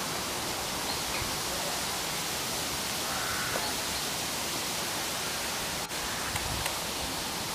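Steady rush of running water, even and unbroken, with a short faint bird call about three seconds in.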